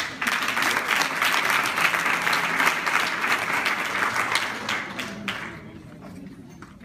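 Audience applauding: a dense patter of many hands clapping that tails off and fades out about five seconds in.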